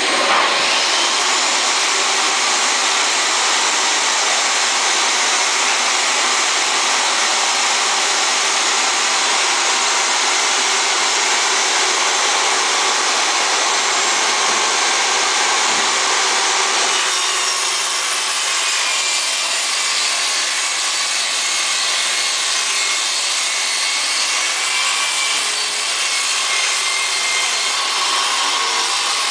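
Portable table saw running steadily. A little past halfway the sound changes as a sheet of 3/4-inch plywood is fed into the blade for a rip cut.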